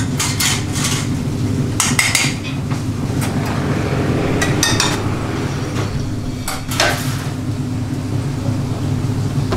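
Commercial kitchen: a steady low rumble from the range, with metal tongs, pans and utensils clinking and clattering several times.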